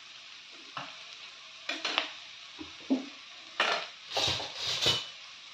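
Chopped vegetables and soya chunks sizzling steadily in hot oil in a pan, with a spatula scraping and knocking against the pan several times as they are stirred. The strokes come loudest and closest together from about three and a half to five seconds in.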